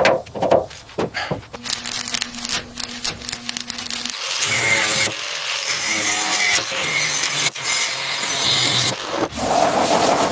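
Restoration tool noise: a few sharp knocks, then a steady low hum, then several seconds of rough scraping and grinding that changes abruptly a few times.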